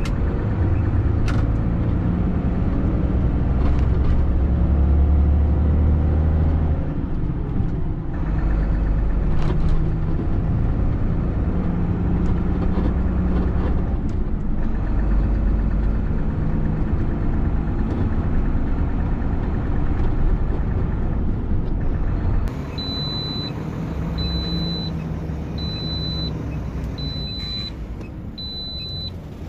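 Large truck's diesel engine and road noise heard from inside the cab while driving, a steady low rumble with the engine note shifting. About two-thirds of the way in, this gives way to a quieter scene with a short high beep repeating about every second and a half.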